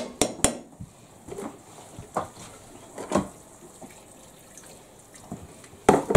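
Quick clinks of a utensil against a metal frying pan, then water poured from a kettle into a pan of gravy, with a louder clatter of pans near the end.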